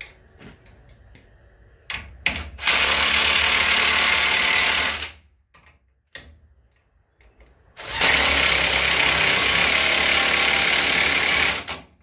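Milwaukee cordless impact wrench hammering bolts tight on a truck frame: a couple of short trigger blips, then two long runs of about two and a half and four seconds.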